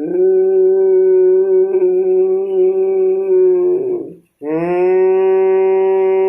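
A man's long, steady-pitched voiced throat sound lasting about four seconds, a short break, then a second long tone that starts with a slight rise in pitch. These are the voiced breaths of ujjayi pranayama, sounded while breathing in and again while breathing out to vibrate and massage the throat muscles against snoring.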